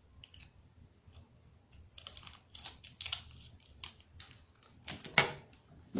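Scattered light clicks and crinkles of a small plastic packet of slime shimmer being handled and cut open, with a sharper click about five seconds in.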